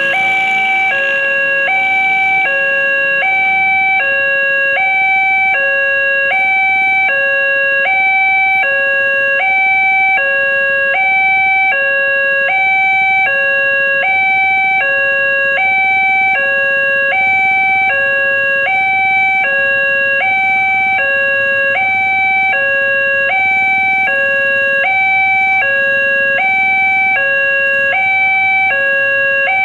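Railway level-crossing warning alarm sounding from the horn loudspeaker on the crossing mast: an electronic two-tone signal that alternates steadily between a lower and a higher note, each held about three-quarters of a second. It warns that a train is approaching and the crossing is closed.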